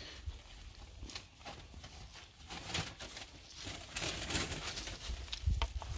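Rustling and light knocks of someone moving about inside a cargo van and climbing out of it, getting busier past the middle, with a few low thumps near the end.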